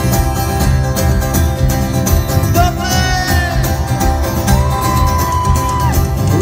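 Live rock band playing through a concert PA: strummed acoustic guitar over electric guitars, bass and drums, with singing that holds a couple of long notes in the middle.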